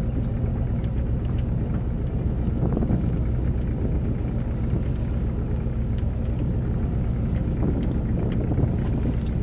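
Fishing boat's engine running steadily at constant speed, a loud, even low hum, with a few small knocks on deck.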